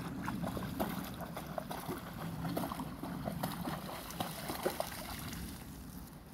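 A dog splashing as it wades and bounds through a shallow river, many quick irregular splashes over the steady run of the stream.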